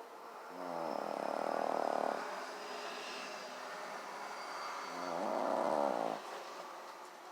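Shih-poo (Shih Tzu–poodle mix) dog snoring in its sleep: two long snores, each about a second and a half, some four seconds apart.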